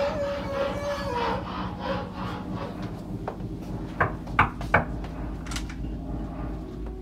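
Knuckles knocking on a wooden door, three sharp raps close together about four seconds in. Before that, a long held wavering tone slides down and stops a little after a second in.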